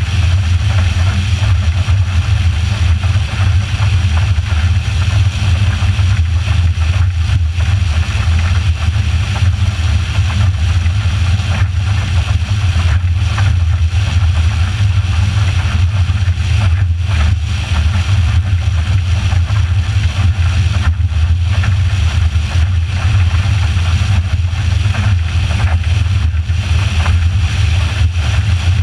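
Motorboat running under way: a steady, loud low rumble of engine and passing air with no change in speed.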